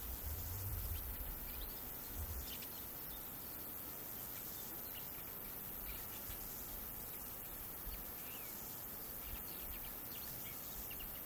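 Outdoor nature ambience: a steady hiss with small birds chirping faintly now and then, including one short rising chirp about six seconds in. A few low rumbles come in the first couple of seconds.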